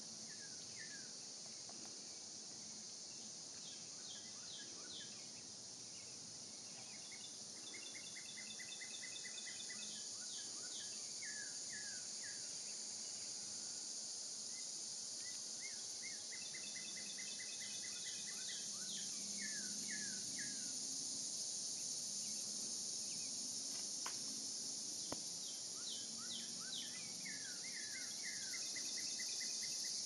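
Steady high-pitched drone of an insect chorus, with a songbird singing now and then in runs of quick, falling chirps.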